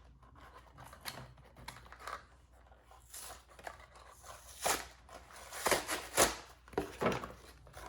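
Protective plastic film being peeled off toy kitchen parts, giving short irregular bursts of tearing and crackling, loudest in the second half.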